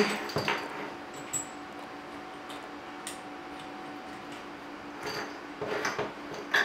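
Light metallic clicks and clinks from a braided metal bidet supply hose and its fittings being handled: a few scattered ticks, then a short cluster of clinks and rustling near the end.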